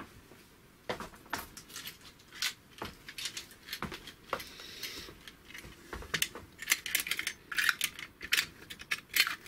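Small metal parts (screws and nuts) clinking and rattling in a metal tray as a hand rummages through them. Scattered single clicks at first, turning into denser clattering over the last few seconds.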